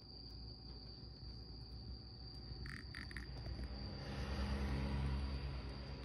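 Steady high-pitched insect trill, like a cricket's, with two short chirps near the middle. About four seconds in, rubbing and handling noise from hands holding the frog near the microphone swells up and becomes the loudest sound, then fades.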